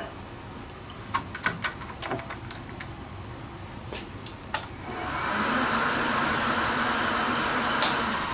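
Bridgeport vertical mill: a handful of sharp clicks as its head controls are worked, then about five seconds in the spindle motor starts and runs steadily with a hum and a hiss. The head is being run in high range again, the repaired backgear selector working.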